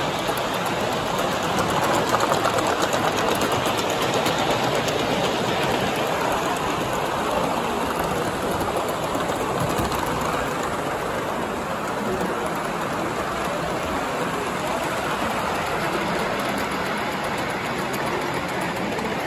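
Gauge 1 live-steam model of BR Standard 9F 92220 Evening Star running steadily with a train of wagons: a fast, even rattle of exhaust beats and wheels on the track.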